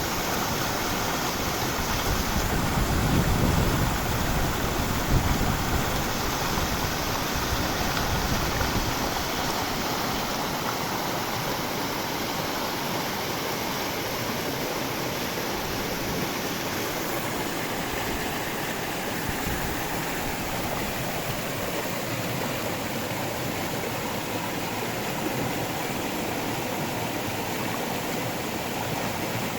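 River water rushing steadily, a continuous even flow with no let-up. For roughly the first nine seconds, irregular low rumbling surges lie under the rush, then it settles.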